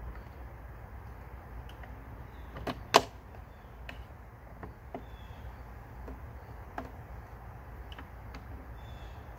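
Small plastic removal clips being pushed by hand into the grooves of an RV window frame, giving scattered clicks and taps. The loudest is a sharp snap about three seconds in.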